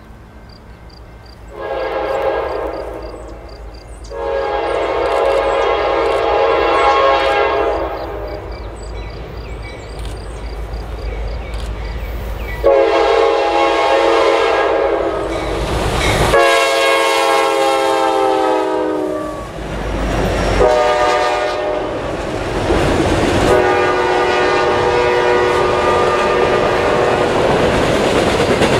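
Norfolk Southern freight locomotive's air horn sounding a series of blasts as the train approaches, the chord falling in pitch as the locomotive goes by. Rumbling locomotives and clattering wheels of a double-stack intermodal train follow under the horn near the end.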